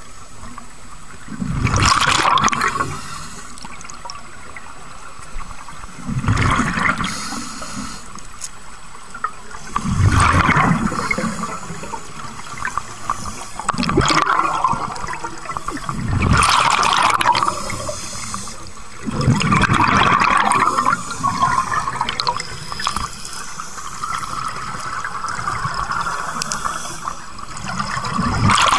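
A scuba diver breathing underwater through a regulator: a burst of bubbling exhaled air about every three to four seconds, with quieter hiss in between.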